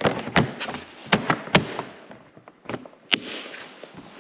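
Hands working the plastic side panel of a Polaris snowmobile, pressing and latching it: a run of sharp clicks and knocks, several close together just over a second in and a loud one about three seconds in.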